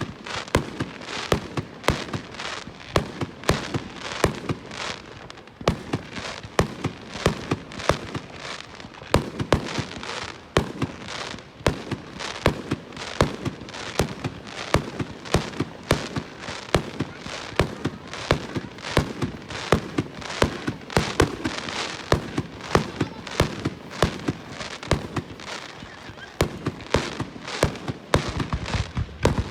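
Fireworks display: a rapid, continuous barrage of aerial shells bursting, several bangs a second, with crackle between them.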